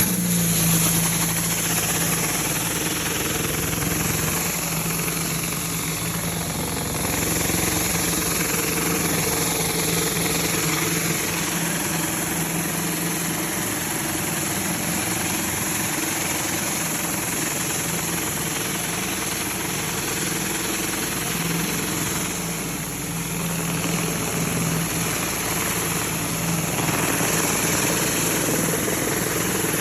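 Pressure washer running while a 36-inch Whisper Wash Maxima surface cleaner sprays water onto a concrete sidewalk: a steady engine hum under a constant hiss of high-pressure spray, at about 2,700 psi.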